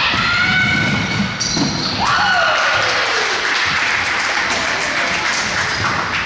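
Spectators in a gymnasium cheering and clapping during a basketball game, a loud, dense crowd noise. A long cry rises and then falls in pitch about two seconds in.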